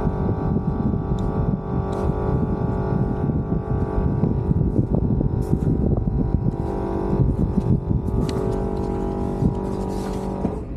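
A motor or engine running steadily at a constant pitch, under a rough, fluttering low rumble, with a few light clicks.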